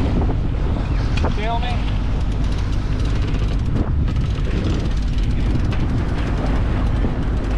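Strong wind buffeting the microphone over water rushing along the hull of a sailboat under way. A brief voice cuts in about a second and a half in.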